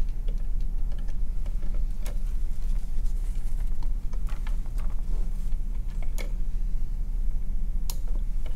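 Steady low hum with a few scattered light clicks and ticks as dental floss is worked between the plastic lower teeth of a dental training mannequin.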